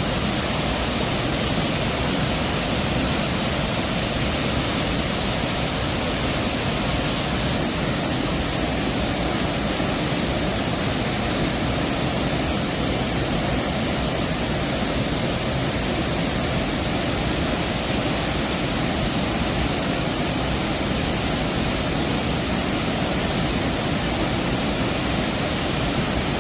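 Steady rush of floodwater pouring through a dam's open spillway gates during a heavy release.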